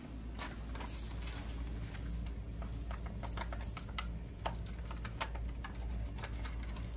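Scattered, irregular light clicks and taps from food being handled and seasoned, over a steady low hum.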